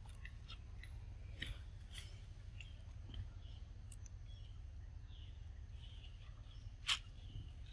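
Long-tailed macaque biting and chewing mango: scattered soft, crisp clicks and smacks, with one sharper click near the end, over a steady low rumble.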